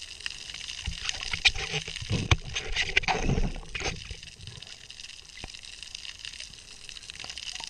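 Muffled underwater sound picked up by a camera below the surface: water moving with scattered clicks and crackles, and a louder stretch of gurgling and crackling from about one and a half to four seconds in.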